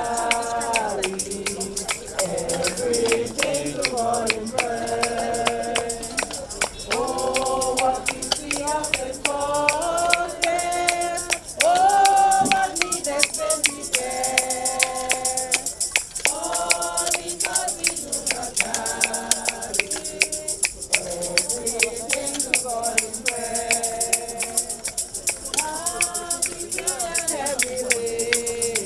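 A group of mourners singing a gospel hymn together, with hand percussion keeping a steady beat.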